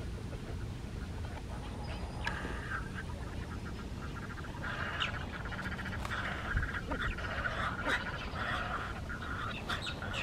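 Animal calls: several bursts of rapid, rattling pulses, the first about two seconds in and more through the second half, over a steady low rumble.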